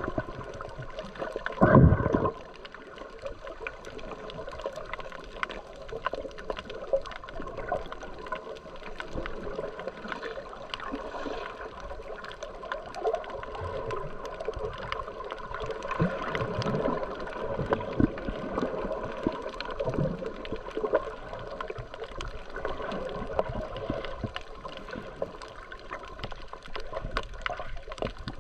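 Water gurgling and sloshing around a snorkeller's camera at or just under the surface, with many small clicks and crackles throughout and one loud thump about two seconds in.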